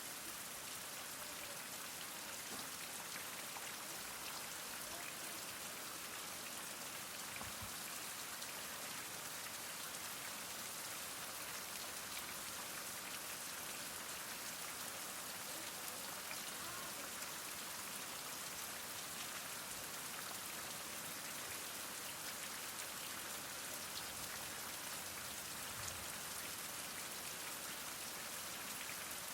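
Heavy rain falling steadily, a dense even patter of drops hitting surfaces.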